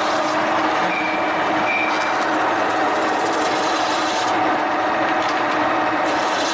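A metalworking machine running steadily, a continuous mechanical noise with a few held tones and a tool working against metal.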